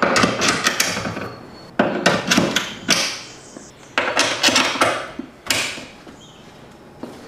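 Pressure washer gun and wand quick-disconnect couplers being snapped onto the fittings under a wall-mounted shelf: several bursts of sharp clicking and rattling, quieter near the end.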